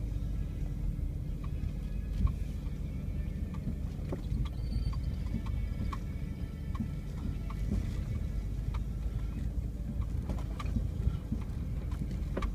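Vehicle engine running low and steady, heard from inside the cab while crawling over a rough dirt off-road trail, with scattered light knocks and rattles as it rocks over the ruts.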